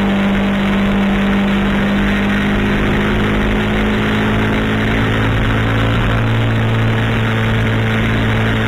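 Kawasaki Ninja 650's parallel-twin engine running steadily at road speed, with wind rushing over the camera; a deeper engine note joins about halfway through.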